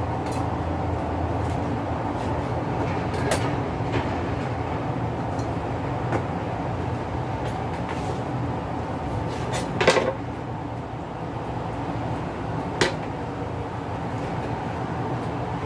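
Occasional knocks and clatters of a knife cutting a black chicken into pieces on a cutting board, the loudest about ten seconds in and another near thirteen seconds, over a steady low hum.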